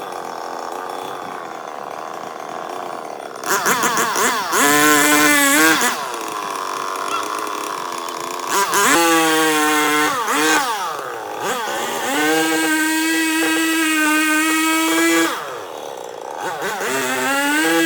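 Chainsaw engine idling, then revved up to high speed several times, each time held for a second or a few seconds before dropping back.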